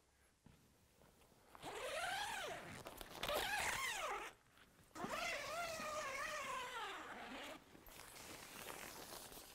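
A tent door's zip being unzipped in three pulls, about one and a half, three and five seconds in, the last the longest. Quieter rustling of the polyester door panel follows as it is freed to hang as a canopy.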